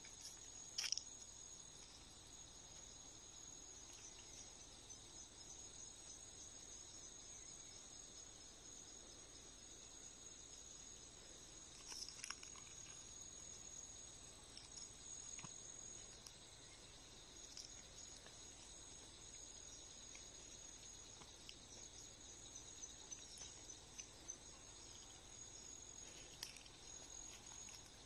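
Faint, steady chorus of insects, a high-pitched buzzing drone, with a few brief sharp chirps, the loudest about a second in and more around the middle.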